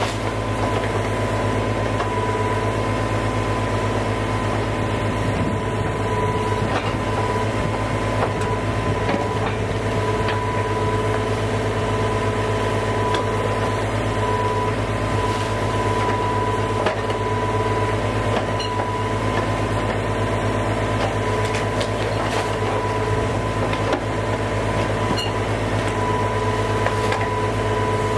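An equipment engine running steadily at constant speed, with a steady high whine over it.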